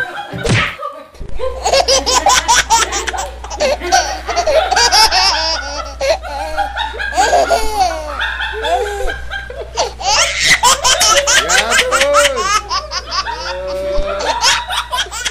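Several women laughing hard and continuously, in rapid pulsing belly laughs broken by high squeals.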